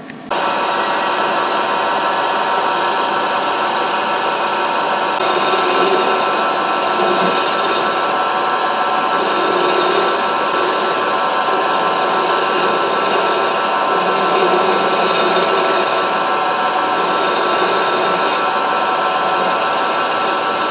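Milling machine running, its spindle whining steadily with several fixed tones as a carbide end mill faces the welded-over dowel-pin hole on a bellhousing flat. It starts abruptly just after the beginning and its high tones shift slightly about a quarter of the way in.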